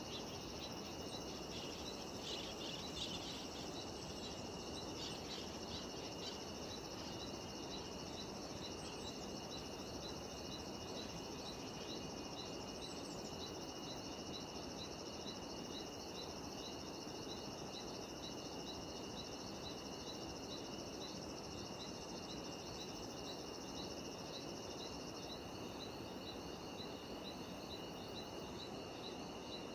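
Cicadas and other insects singing in a steady high chorus, one with a regular, even pulsing, over a constant background hiss. There are a few brief bird calls in the first few seconds.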